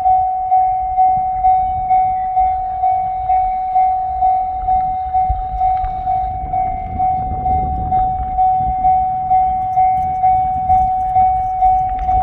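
Japanese railroad crossing warning bell ringing its single electronic tone evenly, about twice a second, signalling that a train is approaching the crossing. A low rumble runs beneath it.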